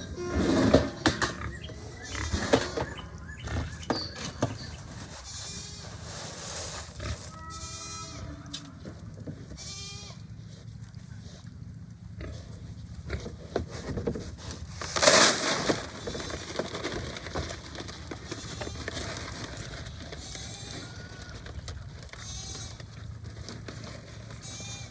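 Hungry Duroc pigs squealing in repeated pitched calls, with a loud harsh squeal about halfway through.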